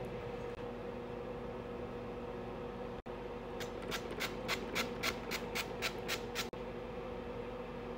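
Trigger spray bottle spritzing about a dozen quick sprays, about four a second, over a steady low hum.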